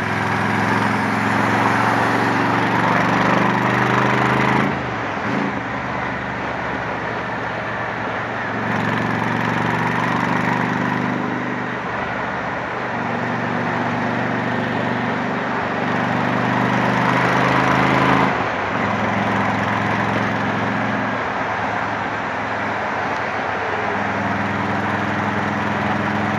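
Honda Shadow 750's V-twin engine, fitted with a Torbal 3-inch sport exhaust, running at road speed under way, over steady wind rush. The exhaust note fades and comes back several times.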